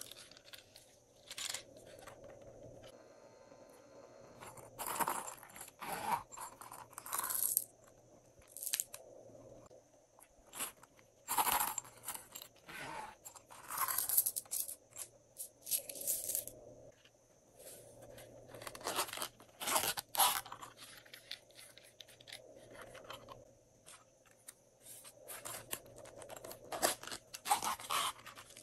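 Small plastic zippered cases and containers being handled and opened: short, irregular bursts of crackling, scraping and clicking plastic with quiet gaps between.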